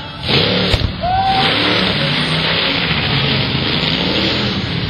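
Monster truck engine revving hard and running loud as the truck drives up over a row of cars, with a short thump a little under a second in.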